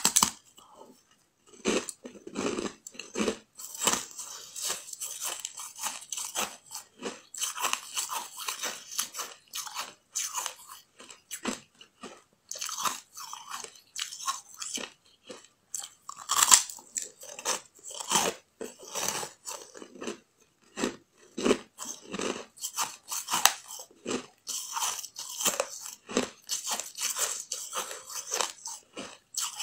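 Biting and chewing a bun-shaped lump of packed, granular ice, frozen without added water, close to the microphone. A loud crunching bite comes right at the start and another about halfway through, with dense, irregular crunching and chewing in between.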